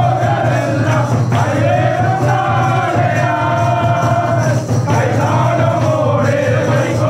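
A group of men singing a Christmas carol together, over a steady low hum.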